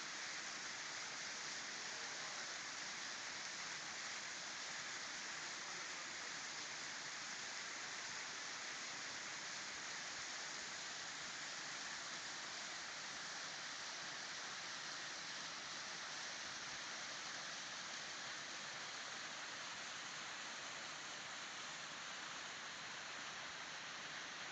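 Small waterfall splashing steadily, a constant rushing hiss of falling water.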